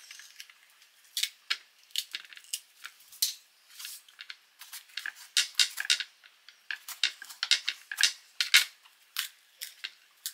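Kitchen knife cutting through raw bell peppers: an irregular run of short, crisp cuts and snaps, several a second.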